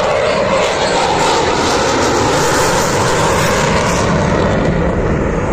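Fighter jet flying a display pass overhead: loud, steady jet engine noise.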